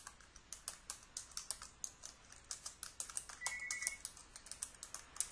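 Typing on a computer keyboard: a fast, uneven run of key clicks as a sentence is typed out.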